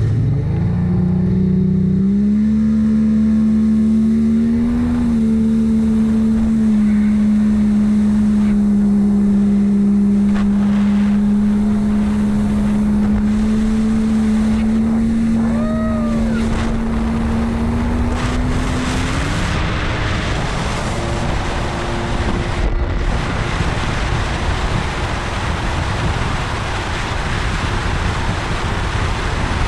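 Yamaha GP1200 jet ski's two-stroke three-cylinder engine revving up over the first couple of seconds, then running steadily at high revs. About twenty seconds in the engine note drops away as the throttle comes off, leaving the rush of wind and water.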